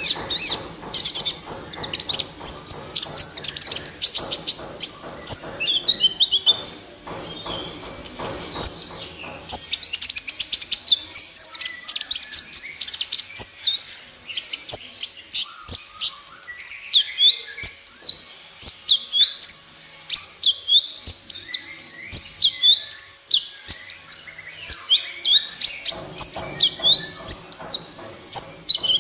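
Kolibri ninja (purple-throated sunbird) singing a fast, continuous run of short, high, thin chirps and sweeping notes, several a second.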